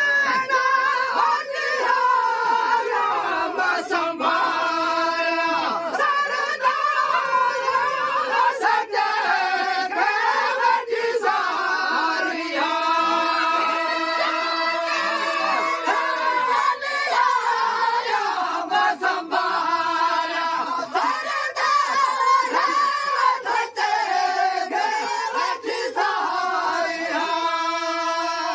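A group of men singing a Sindhi molood, a devotional song in praise of the Prophet, in long held, gliding notes with several voices together.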